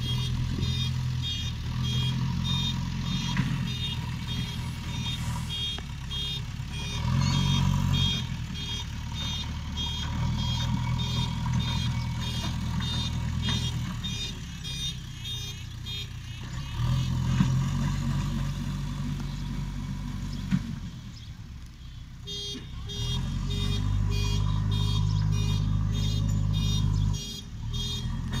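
JCB backhoe loader's diesel engine running, revving up in several spells as it works the front bucket, with a reversing alarm beeping over it in a steady repeated pattern.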